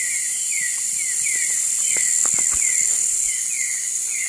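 Night insect chorus in tropical forest: a steady, high, shrill hiss, over which a short falling chirp repeats about three times a second. A few faint knocks come about two seconds in.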